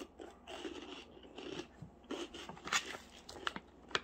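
Close-up chewing of a crunchy chocolate-filled waffle-cone bite (Muddy Bites), with irregular sharp crunches throughout.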